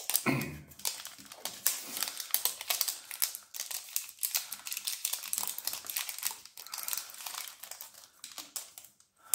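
Thin printed plastic wrapper sleeve being torn along its tear strip and peeled off a plastic egg-shaped container, crinkling and crackling with many quick ticks, pausing briefly near the end.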